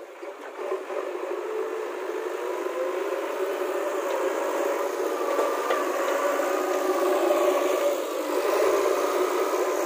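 JCB 3DX backhoe loader's diesel engine running as the machine works, its note wavering up and down.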